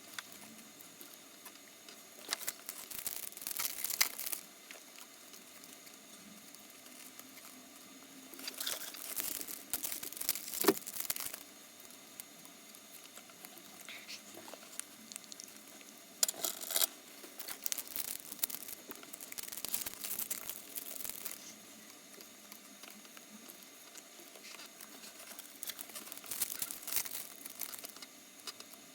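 Trading-card pack wrappers crinkling and tearing as Topps Star Wars cards are unpacked and handled, in four bursts of rustling with quieter gaps between.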